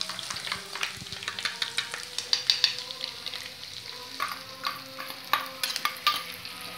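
A metal spoon stirring and scraping a thin chilli-and-turmeric paste in a steel bowl, with frequent sharp clinks, then scraping it out into a pan. Mutton pieces frying in the pan sizzle underneath.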